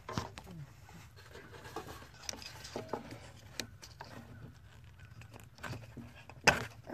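Fingers working a plastic wiring-harness connector and its wires, giving faint scattered clicks and rustles, with one sharp click about six and a half seconds in.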